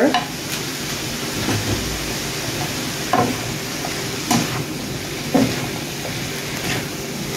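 Shredded cabbage sizzling in a hot frying pan as it is stirred and tossed with butter, with a few short louder stirring strokes against the pan.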